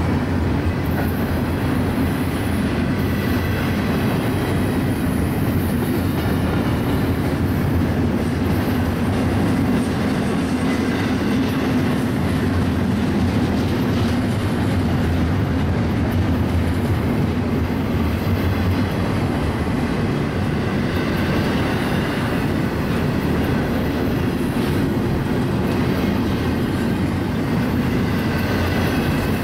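Empty double-stack container train's well cars rolling past close by: a loud, steady noise of steel wheels on rail that holds level throughout.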